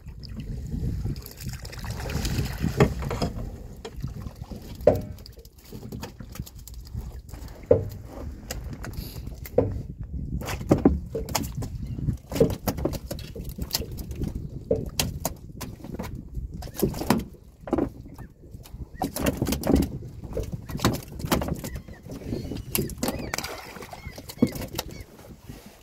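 Fyke net being hauled hand over hand into a small boat: water splashing and dripping off the mesh, with frequent irregular knocks as the hoops and net hit the side of the boat.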